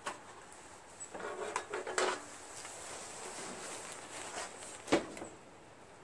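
Wrench clinking and rattling on a battery's positive terminal bolt as the cable clamp is tightened: a cluster of metal clicks about a second in, and one sharp click near the end.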